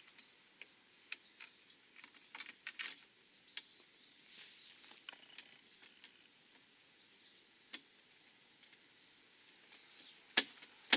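Scattered light clicks and taps of plastic and hardware as a Honda Forza scooter's windshield is handled and fitted, with a sharp click near the end. Birds chirp faintly in the last few seconds.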